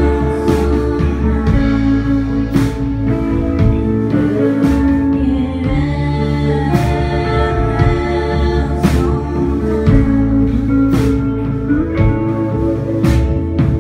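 Live rock band playing: electric guitars and bass guitar over a steady drum beat, with a drum or cymbal hit about once a second.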